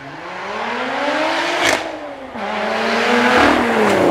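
Lotus Evora GT410's supercharged V6 accelerating hard, its engine note climbing. About one and a half seconds in there is a sharp crack as the pitch drops, then the note climbs again and falls away near the end.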